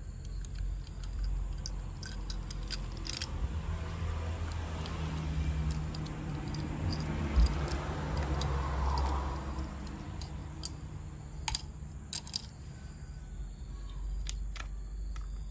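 Scattered small clicks and rattles of plastic toy-train parts and packaging being handled, over a steady low hum.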